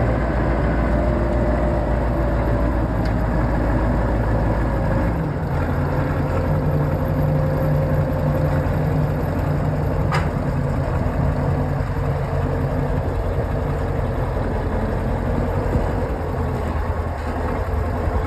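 Diesel engine of a Kirovets K-700 tractor running steadily while its crane holds a seeder aloft; the engine's note changes about five seconds in. A single short clank near ten seconds in.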